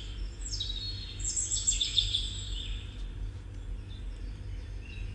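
Birds chirping in a few bursts of quick high notes, loudest about two seconds in, over a steady low hum.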